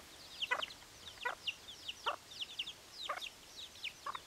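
Deutsches Buschhuhn (German bush chicken) chicks peeping over and over in short, high, falling notes, several a second, while the hen gives a few short, lower clucks about a second apart.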